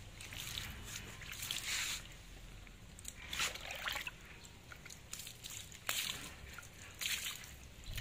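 Water scooped from a plastic basin and poured over a small monkey, splashing and trickling onto a wet tiled floor in several separate splashes.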